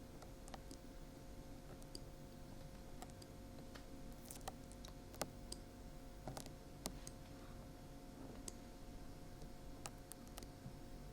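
Dried glue being peeled off the ear of a 3Dio binaural microphone: faint, irregular crackles and small sharp clicks.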